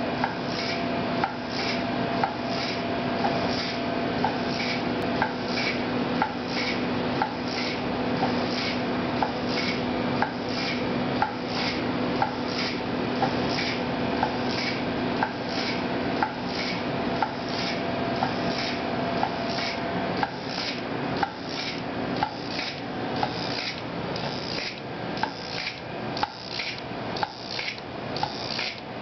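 Pneumatic pressing rig repeatedly tapping its actuator down on a polymer nanogenerator film, a sharp click about twice a second, over a steady hum that fades out about two-thirds of the way through.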